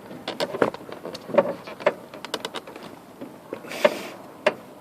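Irregular light clicks and taps as parts of a replacement car door handle and its metal wire linkage are handled and fitted, with a brief scrape about three-quarters of the way through.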